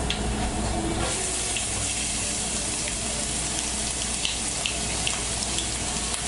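Finely chopped carrot sizzling in hot oil in a frying pan as it is tipped in from a bowl. The steady sizzle thickens about a second in and carries a few light crackles.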